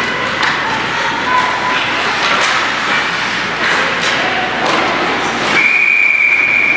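Ice hockey game in an arena: spectator chatter with sharp clacks and knocks of sticks, puck and boards. Near the end, a referee's whistle blows one steady note for about a second.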